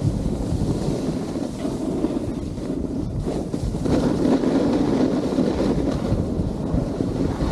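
Wind buffeting an action camera's microphone at riding speed down a groomed ski slope, a steady low rush that swells and eases, mixed with the hiss of a snowboard sliding on the snow.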